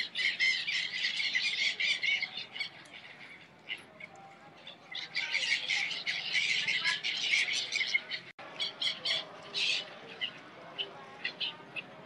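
A flock of gulls calling, many harsh squawks overlapping, in two dense spells of a few seconds each before thinning to scattered calls.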